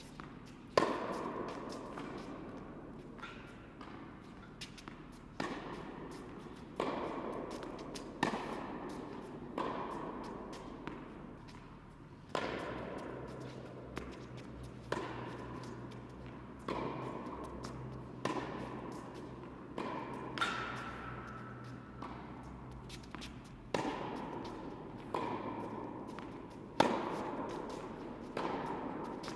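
Tennis ball hit back and forth in a rally: sharp racket strikes and ball bounces roughly every second or so, each ringing on in the echoing indoor tennis hall.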